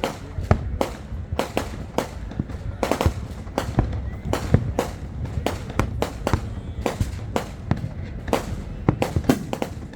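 New Year's Eve fireworks and firecrackers going off all around: a dense, irregular string of sharp bangs and cracks, several a second, over a low rumble of more distant explosions.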